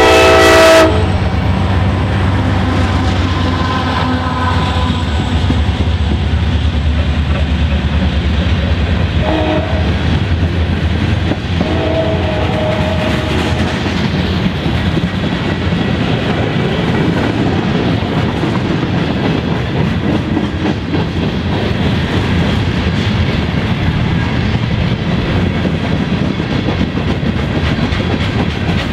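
A diesel freight locomotive's horn chord ends about a second in. Then the EMD two-stroke diesel locomotives rumble past, and a long train of tank cars and covered hoppers rolls by with steady clattering wheels on the rails. A few short tones are heard near the middle.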